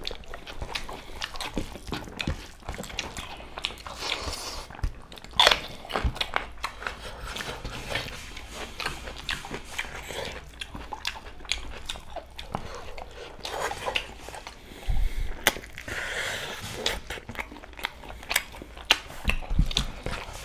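Two men chewing and smacking as they eat rice and curry by hand: an irregular run of short mouth clicks and smacks.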